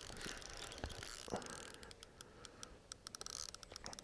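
Carp fishing reel ratchet clicking, a run of faint ticks that grows thicker in the second half.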